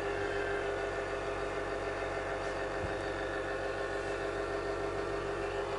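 Steady mechanical hum of a running motor, holding one unchanging pitch.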